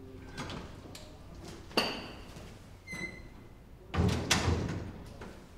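Hospital corridor double doors being pushed open: a sharp ringing metal clank about two seconds in, a lighter clank a second later, then two heavy thumps about four seconds in.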